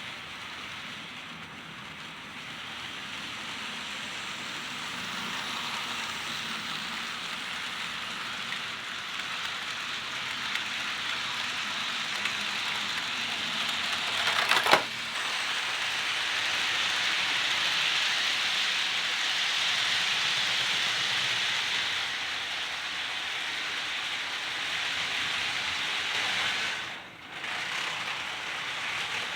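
HO scale model train running around the track: the locomotive's small electric motor and the metal wheels rolling on the rails make a steady hiss-like rumble that slowly swells and fades. One sharp click sounds about halfway through.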